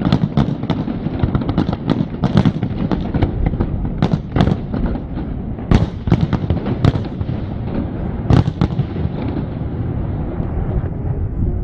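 Fireworks display: aerial shells bursting in quick, irregular succession, many sharp bangs over a continuous low rumble. The bangs thin out in the last few seconds.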